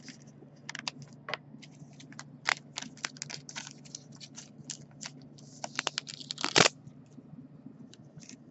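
Clear plastic trading-card holders and sleeves being handled: a string of small irregular clicks, scrapes and crinkles as a card is fitted into a rigid plastic case, with the loudest clicks about six and a half seconds in.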